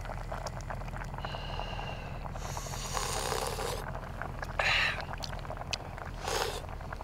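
A person slurping hot spicy fish stew from a spoon: three short breathy slurps over a steady low hum.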